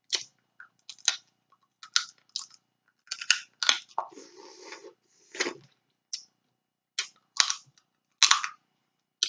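Close-miked eating of snow crab: a dozen or so short, sharp cracks and snaps of crab-leg shell being broken and bitten, with chewing, and a longer slurp at about four seconds in.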